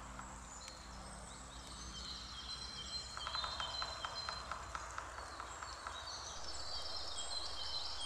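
Black woodpecker chiselling out its nest cavity in a tree trunk: a run of quick, faint taps starting about three seconds in and lasting under two seconds. Songbirds sing high in the background.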